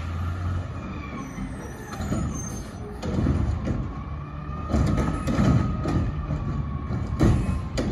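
Front-loader garbage truck's diesel engine running, with a faint steady whine and several knocks and clanks from about five seconds in.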